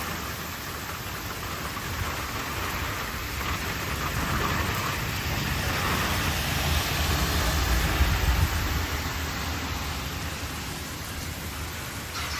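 Heavy rain pouring steadily during a severe thunderstorm. A low rumble builds through the middle, peaks about two-thirds of the way in and then fades.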